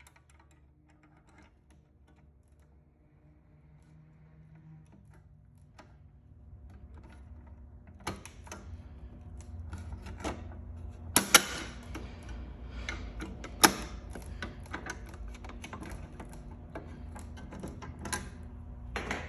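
Clicking, clacking and knocking of a Fire-Lite BG-12L pull station being handled and reset after activation. The clicks are sparse at first, grow busier about eight seconds in and include a few sharp knocks, over a faint low hum.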